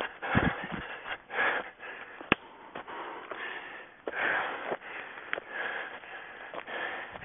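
A runner breathing hard, with a gust of breath about every second, and footsteps crunching through forest undergrowth. There is a single sharp click a little over two seconds in.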